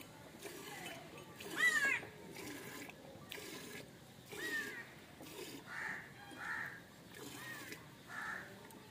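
A string of short animal calls over a faint farmyard background. The loudest is a sharp call about two seconds in, followed by several harsh caws typical of crows.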